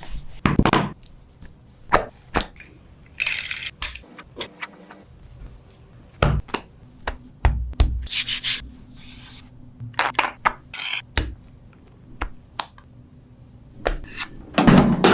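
Irregular rubbing and scraping with scattered sharp clicks and knocks, and a few short bursts of scraping noise.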